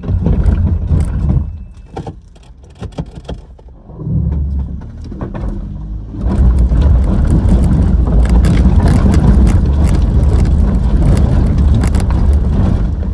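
4x4 off-road vehicle's engine working under load on a steep rocky climb, surging twice and then pulling hard and steadily from about halfway, with stones cracking and crunching under the tyres.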